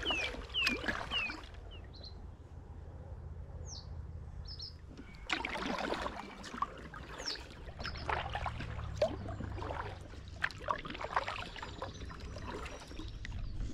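Kayak paddle dipping and splashing in the water in irregular strokes from about five seconds in, with a few short, falling bird chirps in the first few seconds.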